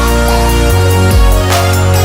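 Electronic dance music with heavy bass and a steady beat.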